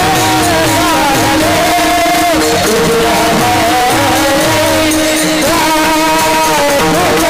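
Marathi kirtan devotional music: a wavering sung melody over a steady held drone, with a repeating drum beat underneath.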